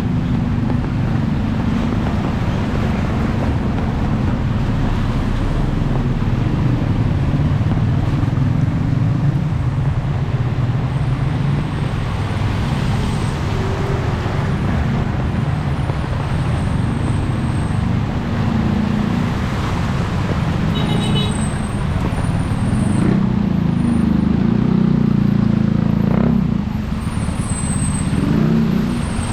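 Steady street traffic noise: motor vehicles running and passing in a continuous low rumble.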